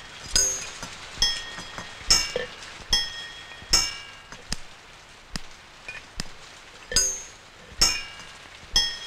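Sharp metallic clinks in a steady rhythm, about eleven of them, a little more than one a second, each ringing briefly at the same bright pitches.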